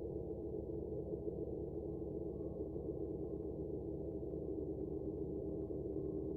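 A steady, low electronic drone that does not change.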